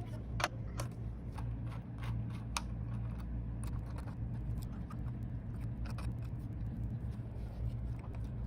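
Scattered light clicks, taps and scrapes of small hardware being handled, over a steady low hum; the clicks come most often in the first few seconds and again about six seconds in.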